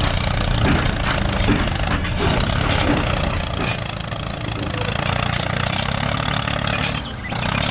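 A motor running steadily with a low engine-like rumble as the miniature model tractor drives, easing slightly about seven seconds in.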